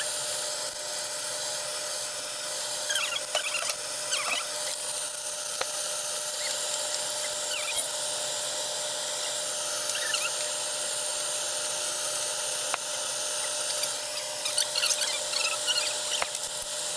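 Chili sauce frying and simmering in hot oil in a nonstick pan, a steady sizzle, with a faint steady whine underneath.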